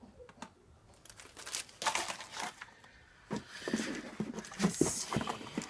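Packaging being handled and unwrapped: paper or plastic crinkling and rustling in quick irregular crackles, with some tearing.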